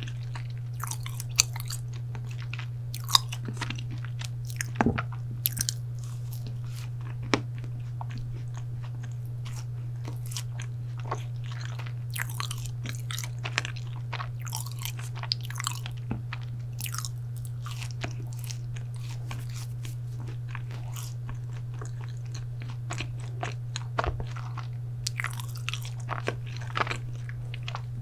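Close-miked chewing of chocolate brownie, with scattered crisp crackles and small mouth clicks over a steady low hum.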